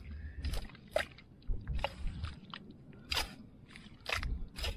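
Long-handled spades and a hoe cutting into and scooping wet tidal mud: a string of short, irregular strokes, about two a second, over a low rumble.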